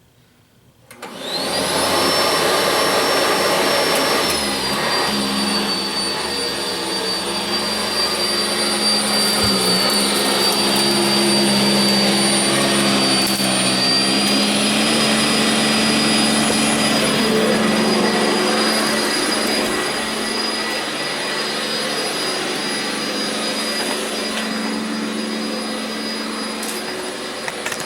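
Sanitaire SC679j upright vacuum cleaner switched on about a second in, its motor spinning up with a rising whine, then running steadily.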